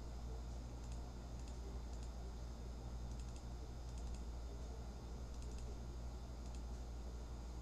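Faint computer keyboard and mouse clicks, scattered and some in quick pairs, over a steady low hum.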